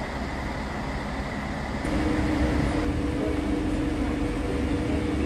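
Diesel railway ambience at first, then about two seconds in it switches abruptly to a Class 245 diesel locomotive running close by: a louder, steady engine hum with a low, even drone.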